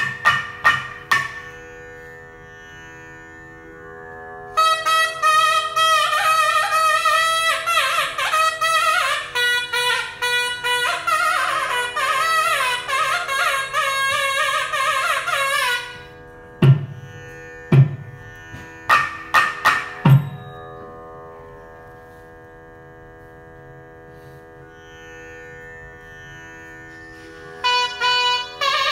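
Carnatic nadaswaram ensemble music over a steady drone. A nagaswaram plays a long ornamented, sliding melodic phrase, and thavil drums answer with a handful of sharp strokes. The drone then sounds alone for several seconds before the nagaswaram comes back in near the end.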